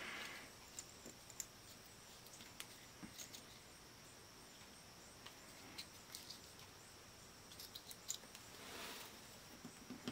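Near silence with scattered faint clicks and taps of a plastic battery holder loaded with batteries being handled and turned over to check the battery contacts.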